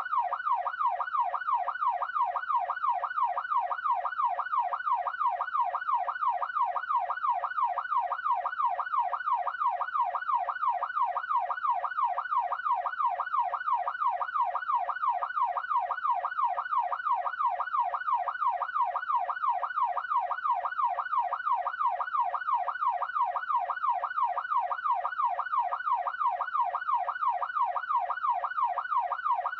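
Police siren in yelp mode: a single rapid up-and-down wail, about two and a half sweeps a second, repeating steadily without a break.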